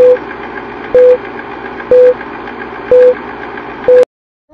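Film-leader countdown sound effect: five short single-pitch beeps, one a second, over a steady hiss. The hiss cuts off just before the end.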